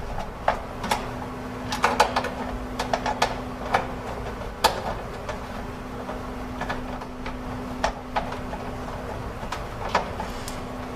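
Irregular small metal clicks and taps of a screw being fitted and driven with a Phillips screwdriver to fasten a motherboard to the case's mounting standoffs, over a steady hum.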